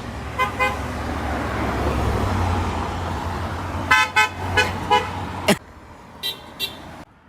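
Vehicle horns giving short toots: a quick double toot near the start, then four more about four seconds in over a steady low traffic rumble. After an abrupt cut, two fainter toots follow.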